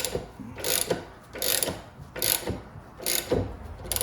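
Ratchet clicking in repeated short strokes, about one every two-thirds of a second, working a U-joint bearing cap out of a double cardan driveshaft yoke.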